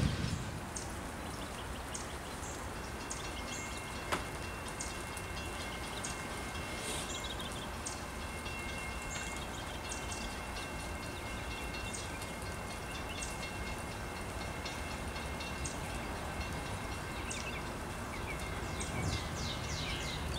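Wet, rainy ambience with a far-off approaching freight train: light rain and dripping with scattered small ticks, a single click about four seconds in, and a faint steady high tone held through most of it.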